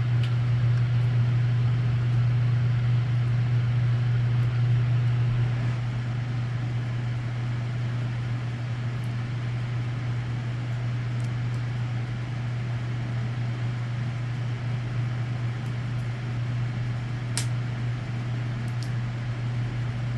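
Wood-burning stove with a fire going: a steady low drone with a few faint crackling ticks.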